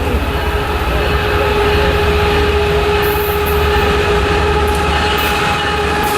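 Locomotive-hauled train passing close by: a loud, steady low rumble with a steady whine held over it.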